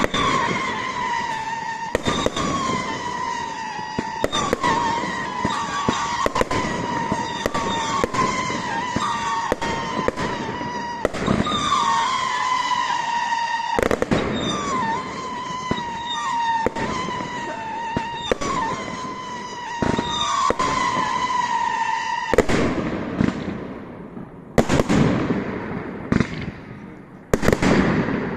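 Fireworks display: rapid bangs and crackles under a continuous, wavering high whistle that stops about three-quarters of the way through, followed by a few loud single bangs near the end.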